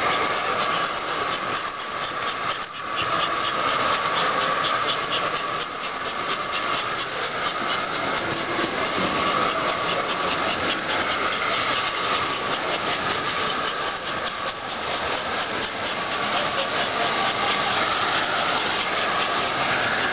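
Model trains running on a layout: a steady whir of motors and wheels on the track, with fast, even clicking of wheels over the rail joints through much of it.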